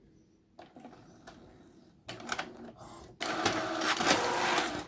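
HP inkjet printer working through a print job it was sent despite reporting its new cartridge as empty: a few clicks, then from about three seconds in its feed and carriage motors run loudly and steadily.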